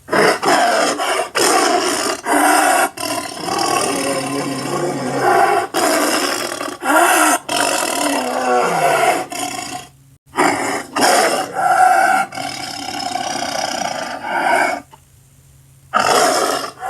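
A string of animal roar sound effects played back to back as separate clips, with a brief break about ten seconds in and a quieter stretch near the end.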